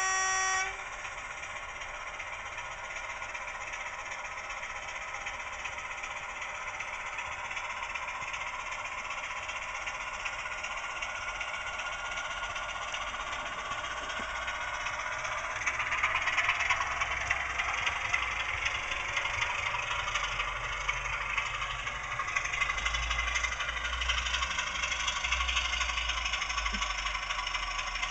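DCC sound decoder in a model Class 26 diesel locomotive playing its engine sound through the model's small speaker. A horn blast cuts off just after the start. The engine then runs steadily and gets louder from about halfway as the locomotive moves off.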